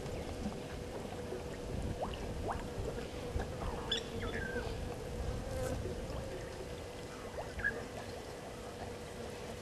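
Outdoor bush ambience: a steady droning hum, with scattered short chirps and whistles over a low rumbling noise.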